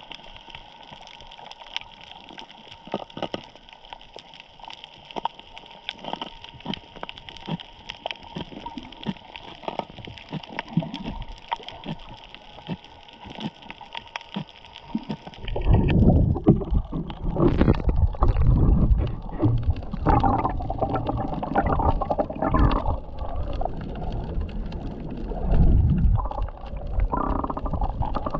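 Underwater sound on a shallow coral reef: scattered faint clicks and crackles over a faint steady hum. About halfway through, a much louder low rumbling, gurgling wash of water takes over as the camera moves up toward the surface.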